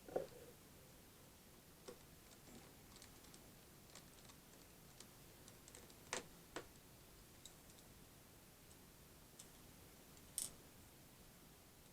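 Faint, scattered small clicks and taps of a screwdriver and tiny screws as the battery is screwed back into a laptop chassis. The louder taps come right at the start, twice about six seconds in, and once near the end.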